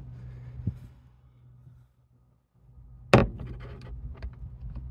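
Teak cockpit locker lid being handled: one loud wooden knock about three seconds in, followed by a few lighter clicks of the lid and its hinges.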